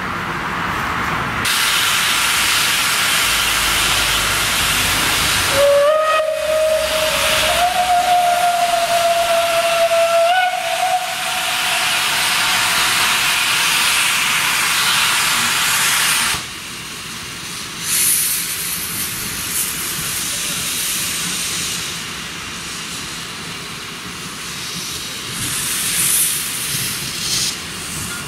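Class 298 narrow-gauge steam locomotive hissing loudly with steam as it moves off with its train. About six seconds in, its steam whistle blows one long note of about five seconds that steps up slightly in pitch. The loud hiss cuts back suddenly about sixteen seconds in, leaving a softer hiss with a few louder puffs near the end.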